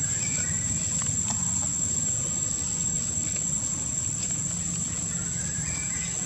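Steady, high-pitched insect drone over a low, steady rumble, with a few faint clicks and a couple of short, faint chirps.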